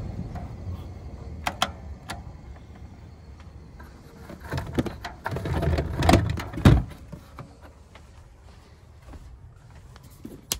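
Camper roof vent fan being worked by hand: a low motor hum that fades over the first few seconds, a few sharp clicks from its control knob, and a run of louder knocks and rustles of handling in the middle. A single click near the end as a ceiling light is switched on.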